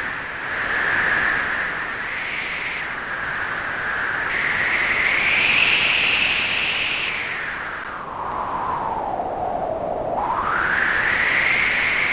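Synthesized wind from Omnisphere: a noise oscillator through a resonant 12 dB low-pass filter, its cutoff and resonance swept by hand so the noise swells and a resonant pitch glides up and down. It sinks low about ten seconds in, then rises again.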